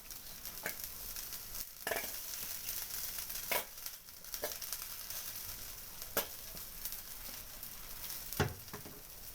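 Crepe bread toasting on a hot pan: a low, steady sizzle with a few short clicks and pops scattered through it.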